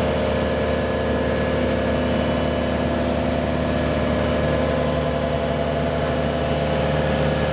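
Engine of heavy road-building machinery running steadily, a constant rumble with a steady hum on top that does not change.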